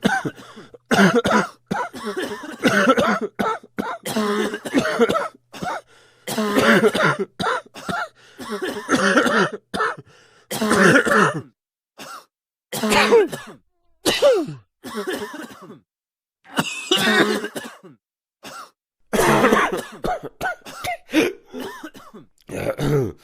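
A person with a bad cough coughing in repeated fits: clusters of harsh coughs and throat clearing with short pauses between them.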